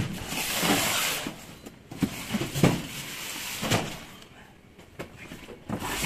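Large cardboard boxes being shifted in a van's cargo area: a scraping slide of cardboard, then several dull knocks as the boxes are moved and set down.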